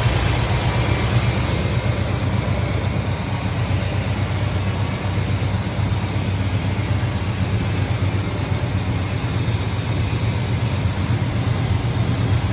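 Chevrolet 350 small-block V8 in an old pickup idling steadily, an even low rumble with no revving.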